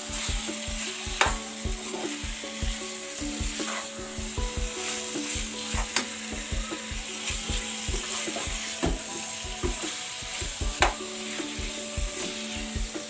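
Steel spoon stirring raw chicken and spices in a hot oiled non-stick pan: a steady sizzle with repeated irregular scrapes and knocks of the spoon against the pan.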